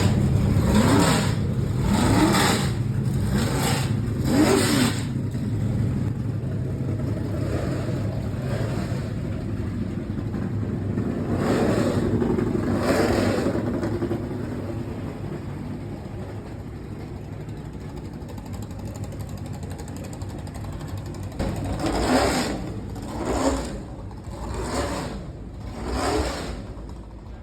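NASCAR stock cars' V8 engines passing by at full throttle, one after another, each pass rising and then falling in pitch. There are several passes in quick succession in the first five seconds, two more around twelve to thirteen seconds, and four in a row near the end, over a steady engine drone from cars elsewhere on the track.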